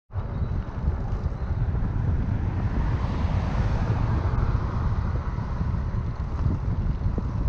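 Wind buffeting the microphone of a camera riding on a moving recumbent trike: a steady, fluttering low rumble mixed with the hiss of road noise. It cuts in abruptly.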